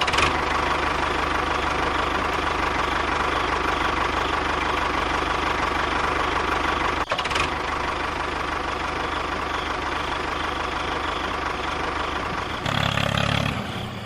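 A motor running steadily, with a brief break about seven seconds in and a shift in its sound near the end.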